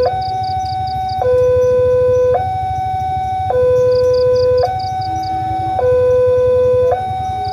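Railway level-crossing warning alarm sounding from the horn loudspeaker on the crossing signal post. It is a two-tone siren that alternates between a higher and a lower tone about once a second, the signal that a train is approaching the crossing. A faint, quick high beeping comes in twice over it.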